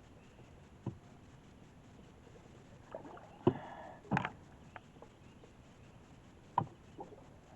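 Knocks and thumps on a small fishing boat as it is moved back into position: four separate knocks, the loudest about halfway through and another near the end, with a brief splashing or rushing noise after the halfway knock.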